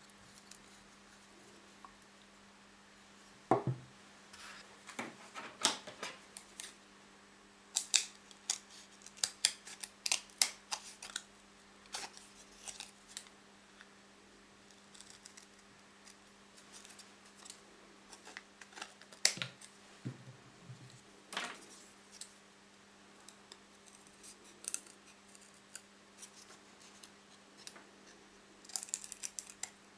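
Scissors cutting a wooden ice-cream stick: irregular sharp snips and clicks as the blades bite through the wood, with a few knocks against a wooden table. A steady low hum sits underneath.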